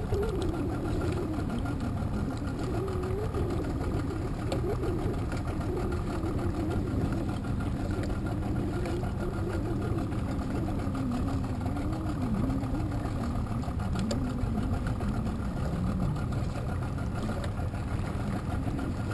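Small boat's motor idling steadily, a low rumble whose pitch wanders slowly up and down.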